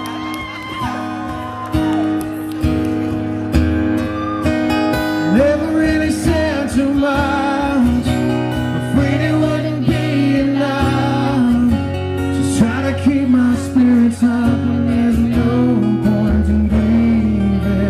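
Instrumental intro of a country song: strummed acoustic guitar with a band, and bending, wavering lead notes coming in about five seconds in.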